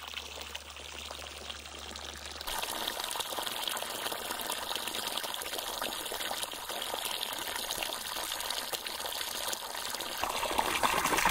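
Mountain spring water pouring from a fountain spout into a wooden trough, splashing steadily on the water's surface. The splashing gets louder about two and a half seconds in.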